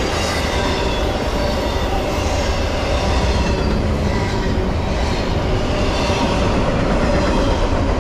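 Norfolk Southern intermodal freight train's well cars, loaded with trailers and double-stacked containers, rolling past at speed: a loud, steady rumble and clatter of steel wheels on rail.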